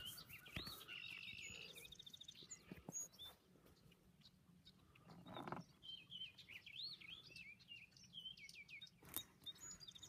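Red-winged blackbirds calling, faint: a scatter of short whistled and chipped notes, with a buzzy trill about a second in.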